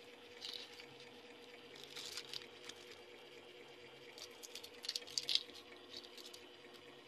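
Hands squeezing and packing a garlic-and-onion stuffing into raw pork belly. It makes irregular wet squelches and crackles, loudest about five seconds in.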